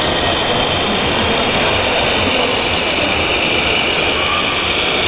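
Steady simulated diesel engine sound from a radio-controlled model car-transporter truck's sound unit as the truck drives slowly, running evenly without revving.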